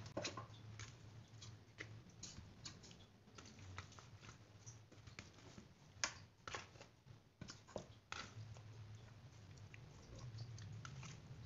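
Raw bone-in mutton pieces being laid by hand into a stainless steel pot: faint wet squelches and scattered light knocks of meat and bone against the pot, a little louder about six and eight seconds in.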